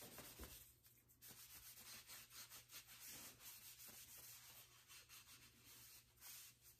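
Faint rubbing of a rag wiping boiled linseed oil onto a body hammer's wooden handle, in short irregular strokes.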